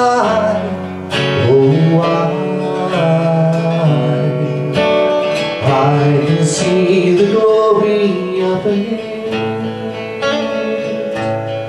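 A steel-string acoustic guitar strummed in chords, with a man singing along into a microphone.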